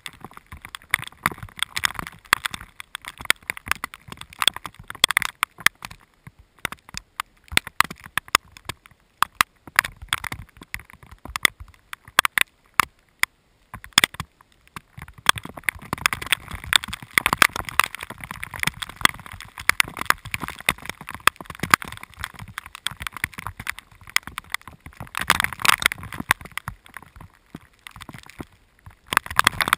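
Rain striking the camera at close range: a dense run of irregular sharp clicks from single drops over a steady hiss of falling rain.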